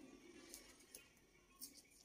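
Near silence, with a few faint clicks and rustles of a paper roll being handled on a printing calculator's wire roll holder.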